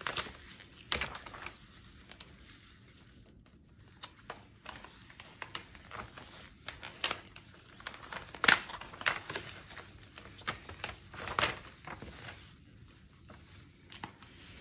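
Excess heat transfer vinyl being peeled off its clear plastic carrier sheet during weeding: irregular crinkling and crackling of the thin vinyl and sheet, with the loudest crackle about eight and a half seconds in.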